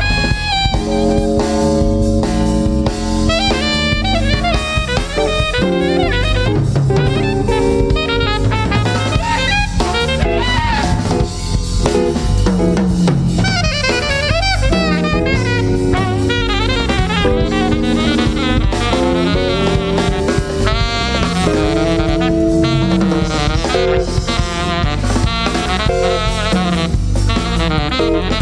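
Live jazz quartet: alto saxophone playing a busy run of notes over drum kit, electric bass and guitar.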